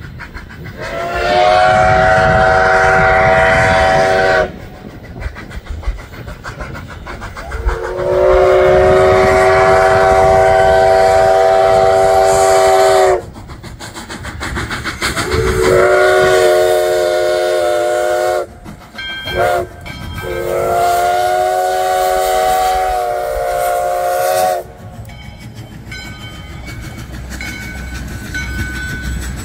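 Steam whistle of locomotive US Sugar 148 sounding a chord of several notes in four long blasts, with two quick short toots just before the last one, the pattern whistled for a road grade crossing. Underneath runs the locomotive's working rumble, and in the last few seconds the passenger cars roll past on the rails.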